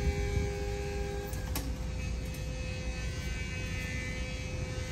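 Electric forklift's motor humming steadily over a low rumble, with a light click about a second and a half in.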